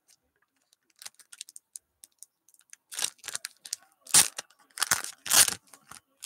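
Plastic wrapping on trading-card packaging being crinkled and torn open by hand. Faint scattered crackles give way, about halfway through, to several louder rips and crinkles.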